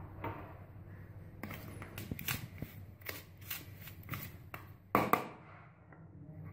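Hand and metal spoon mixing dry flour and sugar in a plastic bowl: scratchy rustling with a run of light clicks, then a louder knock about five seconds in.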